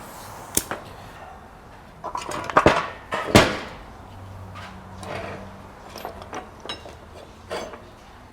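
Metal tools and parts clanking and clinking as they are handled, with a cluster of sharp clanks about two to three seconds in, the loudest ringing briefly, and lighter clinks after.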